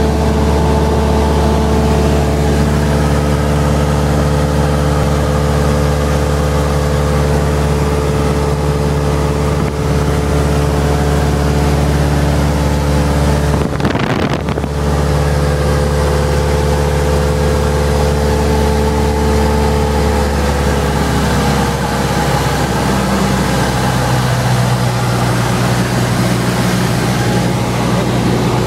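A Cessna 172's piston engine and propeller drone steadily, heard from inside the cabin with some wind noise. About three-quarters of the way through, the pitch steps down as the engine is throttled back.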